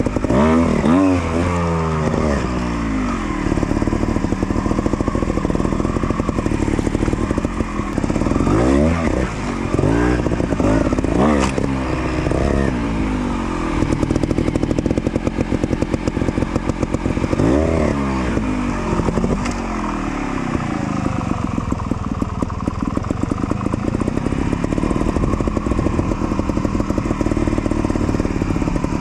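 GasGas trials motorcycle engine blipped in short rev bursts over a low idle while creeping over rocks. There is a burst near the start and a cluster of quick revs in the first half. One more comes past the middle, and then it settles to a steadier low running.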